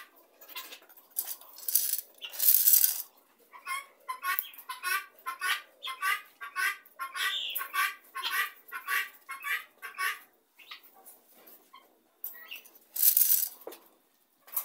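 A flock of helmeted guinea fowl calling in a steady run of short repeated notes, about three a second, with two louder bursts of noise about two seconds in and near the end.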